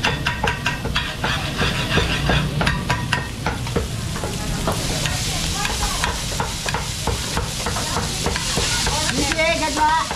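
Large metal spoon clinking and scraping in a stainless steel bowl of chopped pork sisig, over the sizzle of sisig on hot sizzling plates. The clinks are thickest in the first half, and the sizzling hiss is louder in the second half.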